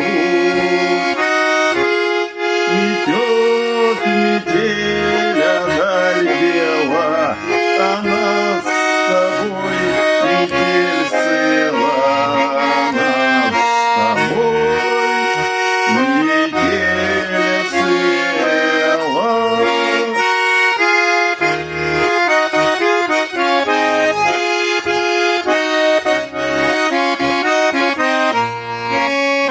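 Tula garmon, a Russian button accordion, playing a folk-song melody on the right hand over pulsing bass and chord accompaniment, an instrumental passage with no singing.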